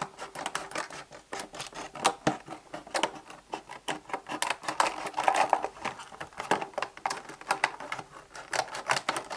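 Scissors cutting along the edge of a stiff clear plastic blister pack: a rapid, irregular run of snips and clicks as the hard plastic gives way.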